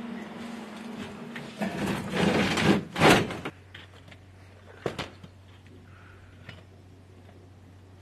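Habitat airlock door being swung shut: a rushing scrape for about a second and a half that ends in a loud thump about three seconds in. Afterwards only a faint steady low hum with a few light clicks.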